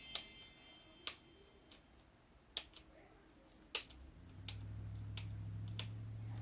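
Small sharp plastic clicks and taps, about eight of them, from plastic toy pieces being handled and fitted together. A steady low hum starts about four seconds in.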